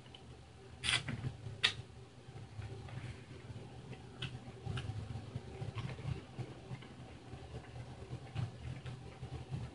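A man chewing a mouthful of sauced chicken, with scattered small wet mouth clicks and smacks; two sharper clicks come about a second in.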